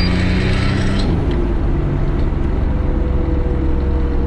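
Turbocharged 3.8-litre Buick V6 of a Holden VR Commodore ute running while driving. Its note changes about a second in as the higher hiss falls away, leaving a steady low rumble.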